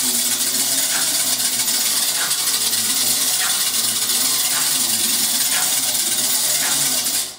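A homemade music sculpture built from a metal box with springs or wires being played: a steady, harsh metallic rattling and scraping, with a stroke about once a second. It cuts off suddenly near the end.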